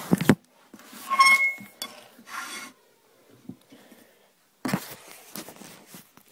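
Handling noise: a knock at the start, then rubbing and scraping with a short squeak, a quiet pause, and another sudden bump followed by small clicks.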